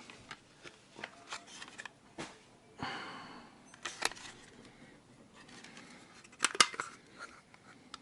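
Plastic housing of a Nissei DS500 blood pressure monitor being worked at by hand to free its snap latches: scattered clicks and scrapes, a brief scrape about three seconds in, and sharper snaps about four and six and a half seconds in.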